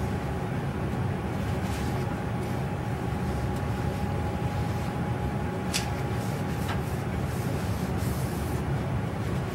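Steady low background rumble with a faint constant hum. Two light clicks come about six and seven seconds in, and a brief soft rubbing near the end as a paper towel is wiped over a glass work surface.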